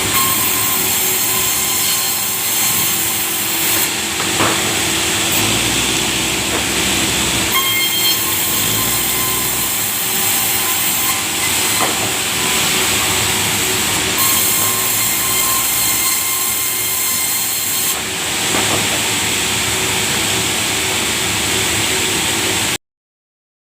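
Sawmill saw running through a large log, a loud, steady hissing whine with a few held tones that shift several times, then cutting off abruptly near the end.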